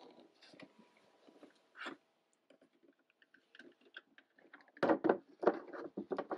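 Large plastic Razor Crest toy ship being lowered onto clear acrylic stand supports: a faint click, then a cluster of plastic knocks and taps from about five seconds in as the hull settles onto the stand.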